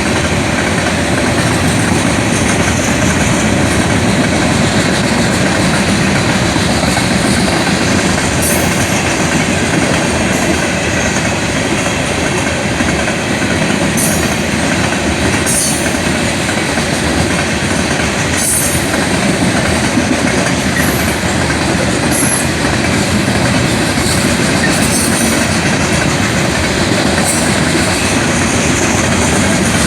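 Train cars rolling past close by: a steady, loud rumble and clatter of wheels on rail, with short high-pitched wheel squeals several times.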